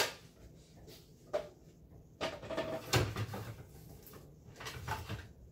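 Light plastic knocks and clatters as a plastic K-cup storage compartment is handled and set down on a countertop: a few sharp knocks, with a busier stretch of handling about two to three seconds in.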